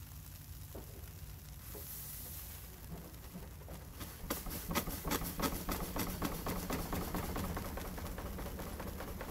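Steam traction engine running with a steady low hum. About four seconds in, a rapid run of sharp chuffs and clicks sets in and it gets louder.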